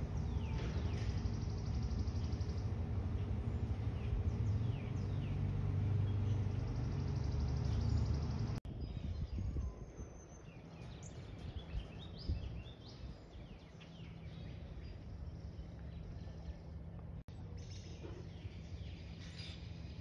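Outdoor ambience with small birds chirping in short, quick calls, over a steady low rumble that drops to a quieter hum about eight and a half seconds in.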